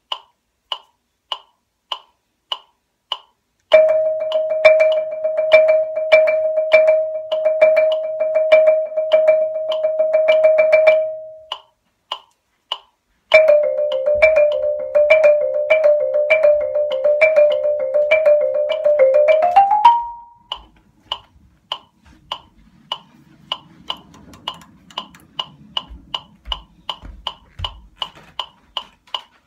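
Marimba practice against a metronome clicking about twice a second. A few seconds in, rapid repeated mallet strokes on one note run for about seven seconds. After a short pause comes a second run of fast strokes stepping between neighbouring notes and rising at the end, then only the clicks go on.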